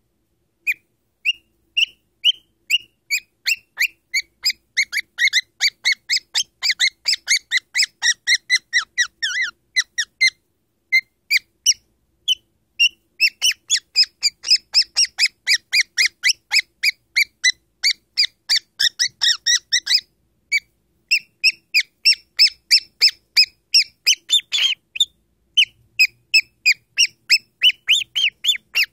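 Cockatiel giving a long run of short, squeaky chirps, several a second, with a brief lull near the middle.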